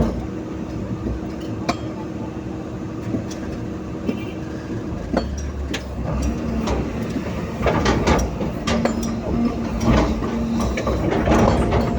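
Heavy excavator's diesel engine running under load, its pitch dropping and the low rumble growing heavier about halfway through. From about two-thirds of the way in comes a dense run of metallic clanks and rattles as the machine works.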